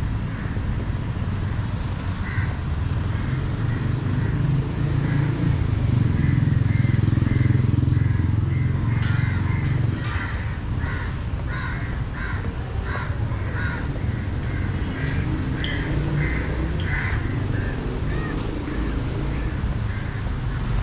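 Crows cawing in a quick series of short, repeated calls that grow denser in the second half. Under them, the low rumble of a passing vehicle swells and fades in the first half.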